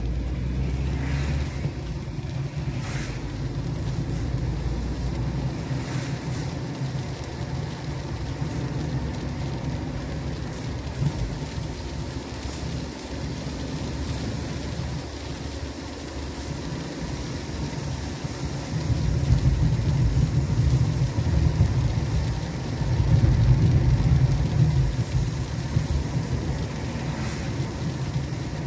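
Car driving, heard from inside the cabin: a steady low engine and road rumble that grows louder for a few seconds at a time past the middle.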